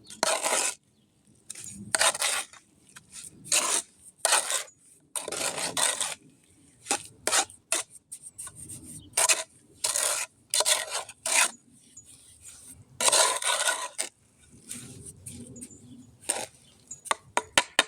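Wet concrete mix being stirred by hand, the mixing tool scraping through the mix and against the container in irregular short strokes.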